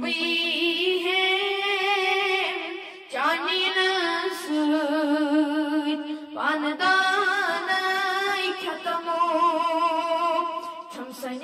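A boy's voice singing a Kashmiri naat, a devotional song in praise of the Prophet, with long held, wavering notes. There are short breath breaks about three and six seconds in, each followed by a phrase that slides up into the next note.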